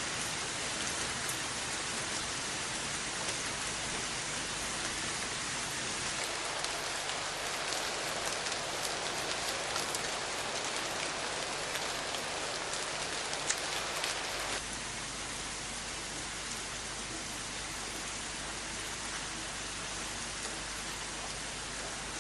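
Steady rain falling, a dense hiss of drops. About six seconds in it turns brighter with more crackly drop hits, and about fourteen and a half seconds in it changes abruptly to a slightly quieter, smoother rain.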